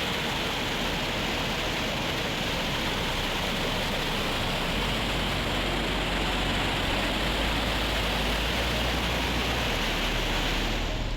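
Waterfall: falling water making a steady, even rush that does not change, stopping abruptly at the end.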